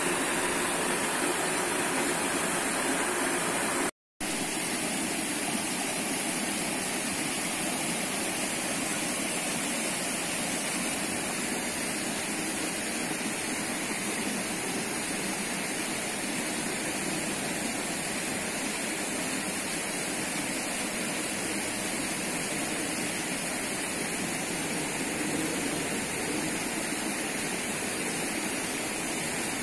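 Steady rushing of stream water flowing over rocks, with no change in level. The sound cuts out completely for a moment about four seconds in.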